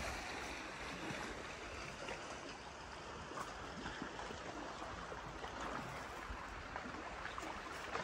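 Steady rushing outdoor noise of lakeside water and breeze on wet ground, with faint scattered ticks of footsteps.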